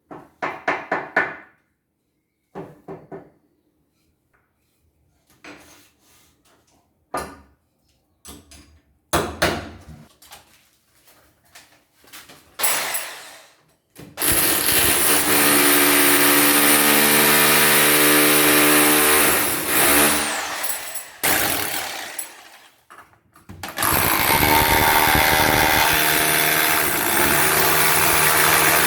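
An electric power tool runs at a steady speed for about six seconds, stops, then starts again near the end and keeps running. Before it come scattered short knocks and scrapes of wood and tools being handled.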